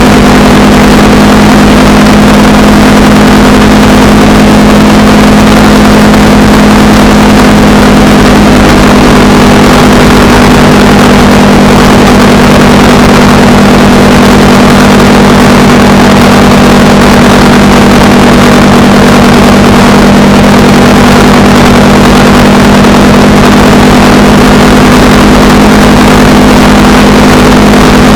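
Honda Rebel 300's single-cylinder engine running at a steady cruising speed, its note holding one pitch, over a constant rushing noise.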